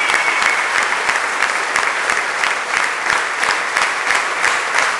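Concert audience applauding between songs: dense clapping that turns into a more even, rhythmic clap in the second half. A high, steady whistle sounds over it for about the first second.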